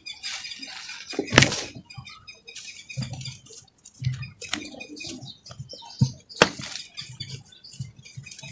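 Hands crushing and crumbling dry lumps of red dirt: an irregular run of dry crunches and crackles, with sharp snaps as lumps break, the loudest about a second and a half in and again twice near six seconds in.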